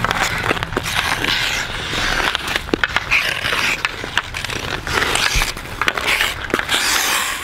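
Ice-skate blades scraping and carving across rough outdoor ice, with sharp clicks of hockey sticks striking the puck and the ice.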